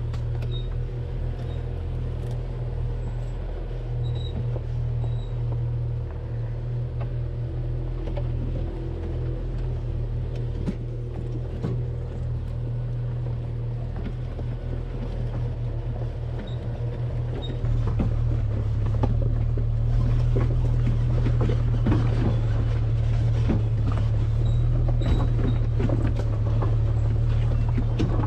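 1999 Jeep Cherokee XJ driving along a rough dirt trail, heard from inside: a steady low engine and road drone with many small knocks and rattles. It gets louder about two-thirds of the way through.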